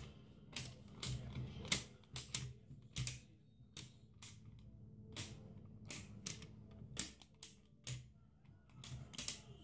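Plastic flip-down character frames on Guess Who game boards being knocked down one after another by hand: a run of sharp, irregular clicks, about two a second.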